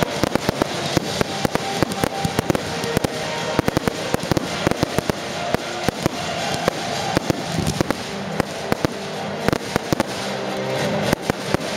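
Aerial fireworks shells launching and bursting in rapid succession, a dense stream of bangs and crackles, with music playing underneath.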